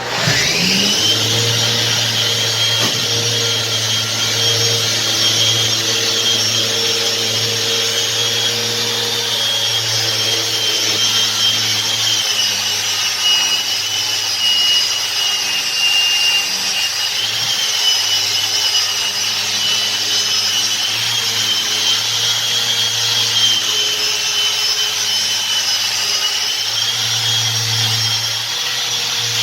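Electric sander grinding a marble countertop. It switches on suddenly and spins up within the first second, then runs steadily with a high whine over a gritty hiss.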